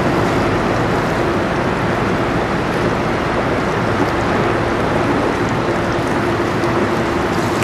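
Steady wind and choppy open water washing against the shore, with a constant low hum running underneath.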